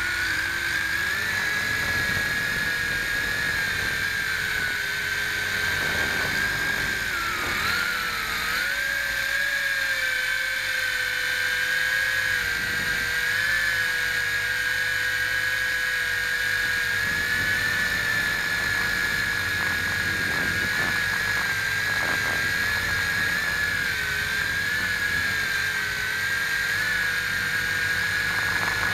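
WLtoys V262 quadcopter's motors and propellers whining steadily in flight, heard from on board. The pitch wavers slightly with throttle and dips briefly about seven seconds in.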